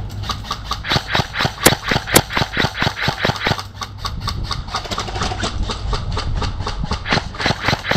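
Airsoft electric rifle firing a long string of quick semi-automatic shots, about four to six a second, with the loudest shots in the first few seconds. Wind rumbles on the microphone underneath.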